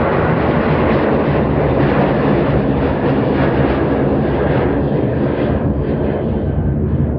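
Jet aircraft engines, loud and steady, as a jet passes close by; the higher part of the sound fades a little near the end.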